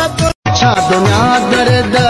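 Background music: a South Asian folk-style song with a steady rhythmic beat. It drops out for a split second near the start.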